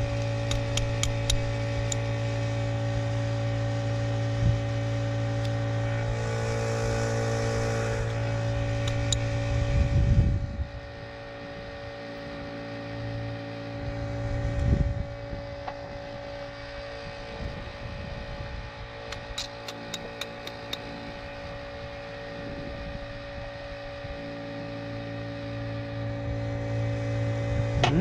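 A steady mechanical hum with many even tones, like a motor running, drops in level about ten seconds in and builds back up near the end. Light metallic clicks come in small clusters, fitting spark plugs being checked and tapped to gap.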